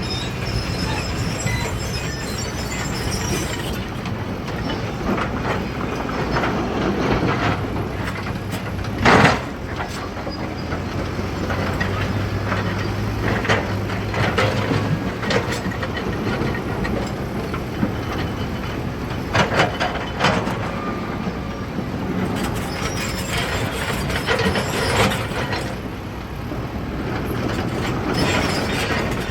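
Diesel engines of earthmoving machinery running steadily, with scattered sharp metallic clanks and knocks, the loudest about nine seconds in and a pair around twenty seconds in.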